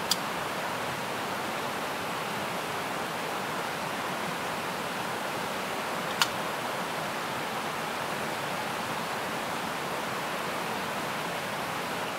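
Shallow river running over a rocky bed, a steady even rush of water. Two short sharp clicks break through it, one right at the start and one about six seconds in.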